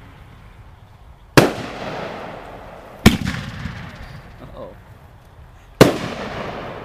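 Aerial firework shells bursting in the sky: three sharp bangs, about a second and a half in, about three seconds in, and near the end, each trailing off in a long rumbling echo.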